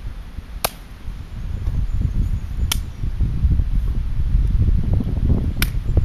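Three sharp cracks of wood a second or two apart, over a low rumble of wind on the microphone that grows louder about two seconds in.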